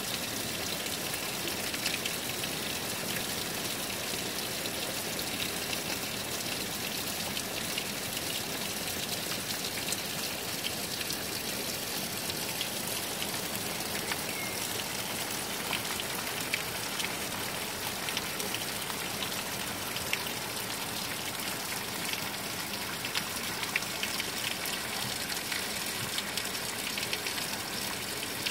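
Heavy downpour of rain on flat roofs: a steady, dense hiss with many individual drop clicks and splashes, even in level throughout.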